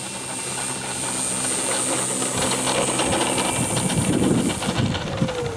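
RC model Cessna 182's motor and propeller running steadily as the model rolls along the runway, getting louder as it nears, with a high thin whine over it. About three and a half seconds in the steady tone gives way to a rougher rush, and near the end a tone drops in pitch as the motor slows.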